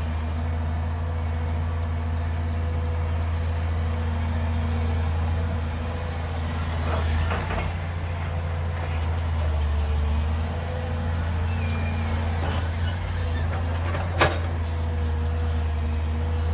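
Diesel engine of a JCB crawler excavator running steadily under load as it swings to load a dump truck, its drone shifting slightly mid-way, with a single sharp knock about fourteen seconds in.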